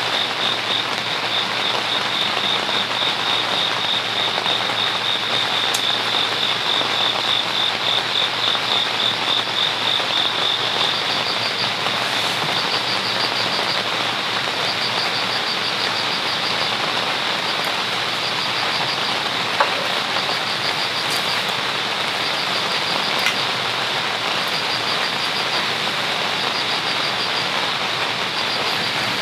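Steady heavy rain drumming on a tent with no rainfly over it. Over the rain, a high, rapid trilling call runs steadily for the first ten seconds or so, then continues as short trills repeated every second or two.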